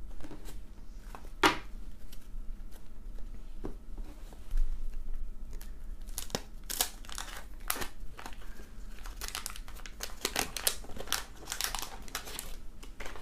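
Paper wrapper of a 1991 Fleer basketball wax pack crinkling and tearing as it is pulled open by hand, with a few scattered crackles first and dense crinkling through the second half.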